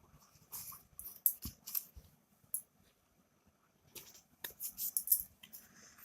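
Packaging being handled during a phone unboxing: short dry rustles and light clicks in two clusters, with a quiet stretch of about two seconds between them.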